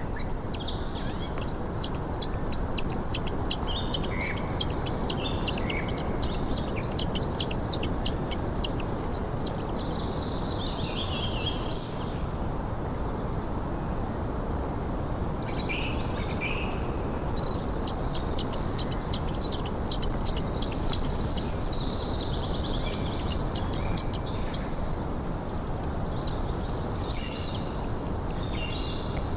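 Small birds chirping: runs of short, high, arched notes repeated about once a second, pausing for a few seconds midway, over a steady background hiss.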